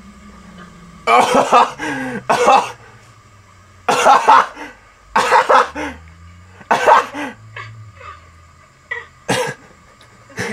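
A man's fit of hard laughter, coming out as short, cough-like bursts, about eight of them in ten seconds with short gaps between.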